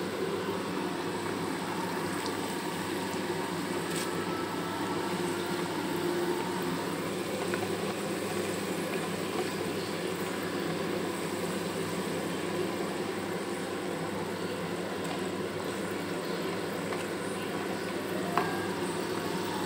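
Litti, stuffed wheat-dough balls, deep-frying in hot oil in a pan: a steady sizzling and bubbling, with a single faint click near the end.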